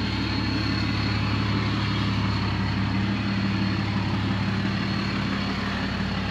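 Ram 5500 pickup's Cummins turbo-diesel engine idling steadily, an even low hum.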